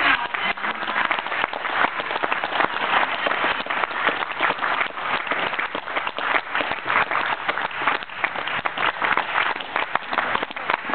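Audience applauding: steady, sustained clapping from a crowd.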